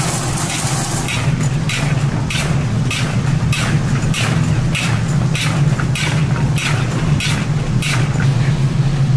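A slotted turner scraping and tossing sticky sauced fried chicken around a large wok in an even rhythm, about one and a half strokes a second, over a steady low hum.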